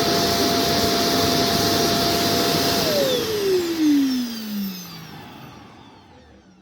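The auto-empty dock of an EZVIZ RE 5 Plus robot vacuum, its suction motor running loud and steady as it pulls dust out of the robot. About three seconds in, the motor shuts off and winds down, its whine falling in pitch as the noise fades away.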